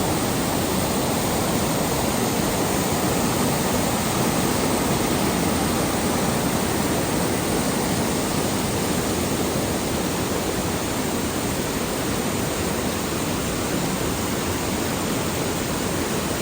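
Loud, steady rush of fast-flowing water, an even roar without pauses or changes.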